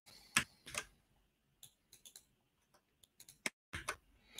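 Scattered clicks from a computer mouse and keyboard: two sharper ones near the start, then a few light taps in a quick run about three seconds in.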